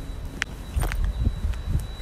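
Footsteps at a walking pace, sharp clicks about two a second, over a low steady rumble on a phone microphone.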